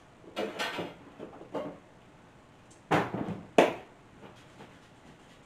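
Off-screen kitchen handling noises: a few separate knocks and clatters, like a drawer or cupboard and utensils being handled, the loudest a sharp knock about three and a half seconds in.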